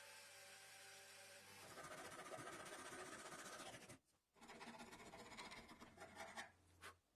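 Faint scratching and rubbing in two spells, broken by a short pause about four seconds in, with a steady hum under the first part.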